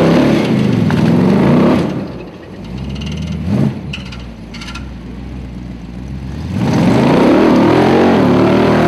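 Formula Offroad car's engine revving hard in surges as it crawls over rough ground, the pitch swinging up and down. It eases to lower revs for a few seconds in the middle, then revs hard again near the end.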